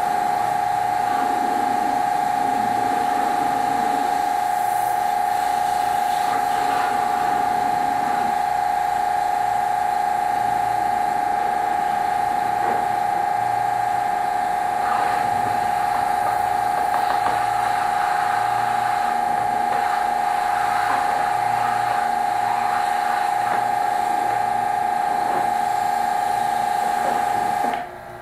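Electric pressure washer running with a steady high-pitched whine while spraying, cutting off abruptly near the end.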